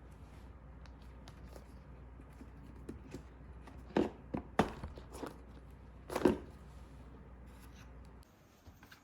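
A few light, sharp taps and knocks, about four of them in the second half, over a faint steady hum.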